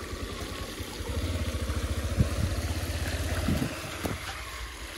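Road noise while cycling through a waterlogged street: a low rumble of traffic and wind, louder from about a second in until near the end, with a few brief knocks along the way.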